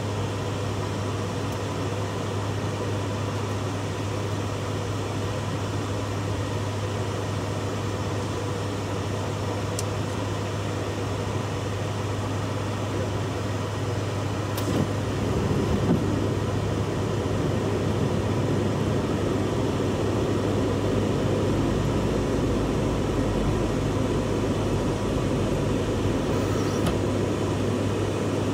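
Fokker 50 turboprop engines and propellers heard inside the cockpit: a steady low drone over a rushing hiss of air, growing somewhat louder about halfway through, with a couple of faint clicks.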